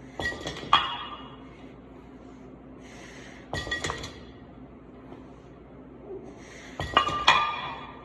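Metal gym weights clinking and rattling in three short bursts, a few seconds apart, each with a ringing metallic tone.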